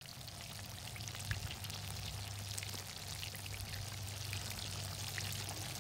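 Hot oil in a cast-iron skillet sizzling and bubbling steadily around breaded fish as they deep-fry, with constant small crackles and pops. A steady low hum runs underneath.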